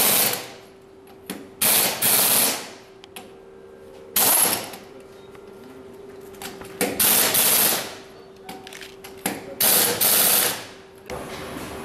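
Pneumatic impact wrench hammering on wheel lug nuts in short bursts, about five in all, each under a second long and a couple of seconds apart, with a faint steady hum underneath.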